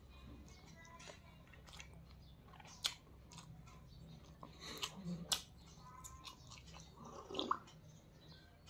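Close mouth sounds of a person eating rice and chicken curry by hand: chewing, with a few sharp clicks.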